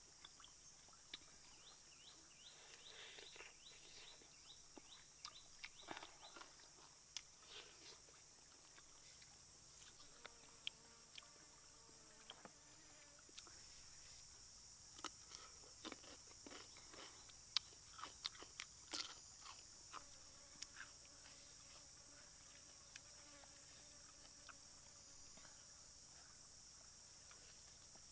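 Faint steady high-pitched insect chorus, with scattered sharp clicks and smacks of eating chicken by hand: chewing and lip smacks.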